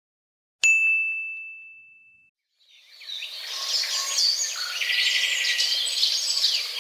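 A single bright ding that rings out and fades over about a second and a half. After a short gap, a chorus of birds chirping fades in and then cuts off suddenly.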